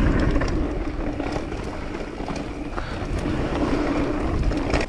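Mountain bike riding down a dirt flow trail: tyres rolling over the ground, the bike rattling with scattered clicks over bumps, and wind buffeting the helmet camera's microphone, all under a steady low drone.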